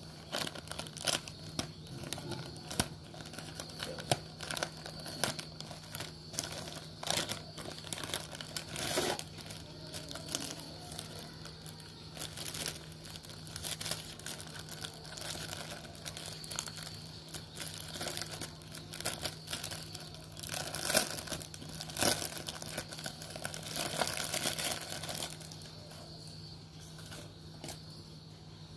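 Plastic packaging crinkling and crackling in the hands: a printed plastic pouch and a clear plastic bag being opened and handled, with irregular crackles throughout. The handling dies down a few seconds before the end.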